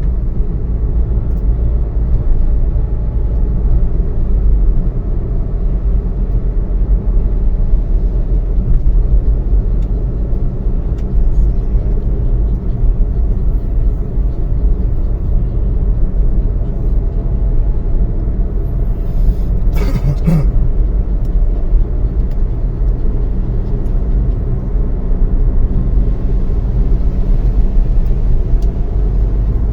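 Steady low rumble of a car on the move, with one brief sharp noise about twenty seconds in.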